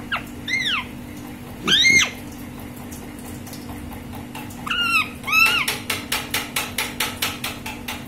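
Rose-ringed parakeet giving short screeching calls that rise and fall in pitch, the loudest just under two seconds in and a pair about five seconds in. From about six seconds a quick run of clicks follows, about four a second, over a steady low hum.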